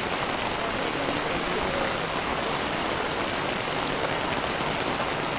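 Steady rain falling on floodwater: a dense, even hiss that does not let up.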